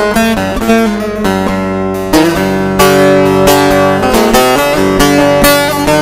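Instrumental break of a Turkish folk song (türkü) between sung verses: plucked strings playing a busy melody over strummed chords, with no singing.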